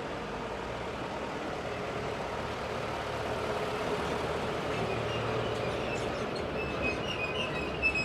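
Street traffic ambience: a steady rumble of passing vehicles that grows louder over the first few seconds. From about five seconds in, high intermittent squealing comes in, and a sharp click sounds near the end.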